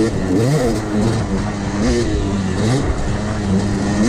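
Yamaha YZ250X's 250 cc two-stroke single-cylinder engine revving under a riding throttle, its pitch rising and falling several times and holding steadier near the end.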